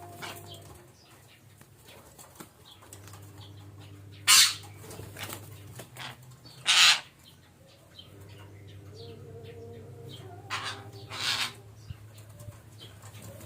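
Parakeets making short, loud, harsh bursts: two strong ones a couple of seconds apart, then two weaker ones near the end, over a steady low hum.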